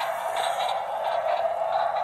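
Toy train running along its plastic track: a steady whirring with light ticks about twice a second.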